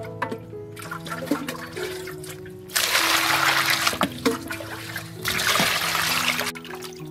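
Water poured from a plastic scoop into a metal bowl of fish pieces, splashing, in two pours: one about three seconds in and another just after five seconds, with hands rubbing the wet fish between them.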